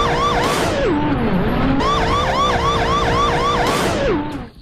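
Electronic police-car siren in a fast yelp, about four warbles a second. It twice breaks off into a falling slide in pitch with a rushing whoosh, then stops at the end.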